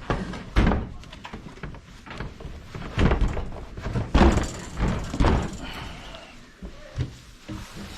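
A run of knocks and thumps from things being handled and put back in a wooden under-sink cabinet, with one loud bump about half a second in and a cluster of bumps between three and five and a half seconds in.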